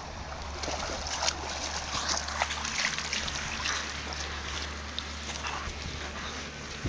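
A large dog splashing as it wades out of shallow water, with irregular sloshes and drips that thin out about four seconds in as it steps onto the muddy bank.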